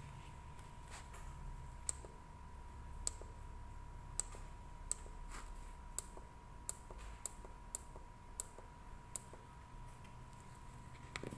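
A series of about ten sharp clicks, roughly one a second and coming faster in the middle, over a faint steady high tone.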